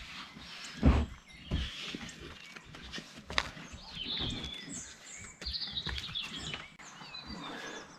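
Small birds chirping and singing, with a heavy thump about a second in, another soon after and a sharp click a little later.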